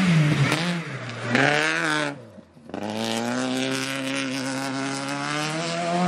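Renault Mégane Coupé rally car on a gravel stage: the engine note drops as the driver lifts off, then climbs again under hard acceleration. The sound briefly cuts out about two seconds in. After that a rally car engine is heard held at a steady, slowly rising pitch as it approaches.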